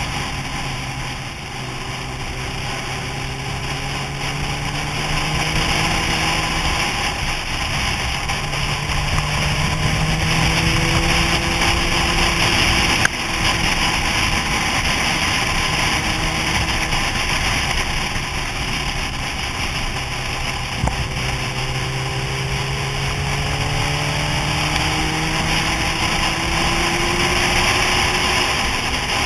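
Motorcycle engine running at road speed, its pitch rising and falling gently with the throttle, under steady wind rush on the helmet-mounted microphone. There is a brief click about 13 seconds in.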